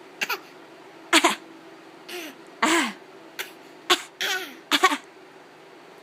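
A baby of about eight months making a series of short fake coughs, about eight in all, some carrying a brief pitched voice sound.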